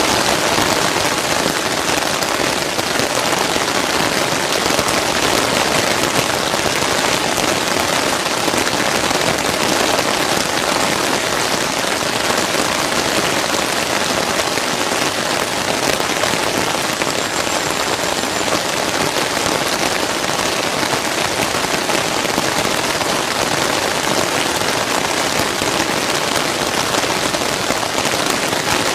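Steady heavy rain falling, an even hiss of drops that holds at a constant level throughout.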